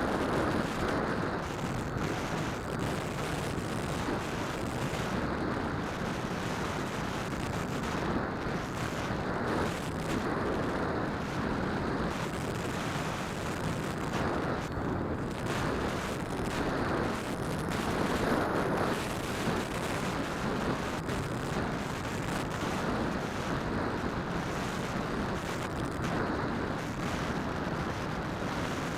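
Steady rumbling rush of propeller wash and wind on a small keychain camera's microphone, mounted on a Phantom quadcopter in flight.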